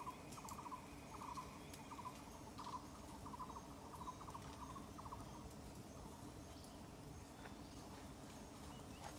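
Faint forest ambience: an insect chirping in short rapid trills about twice a second, stopping about six seconds in. A thin steady high tone runs through the first two seconds.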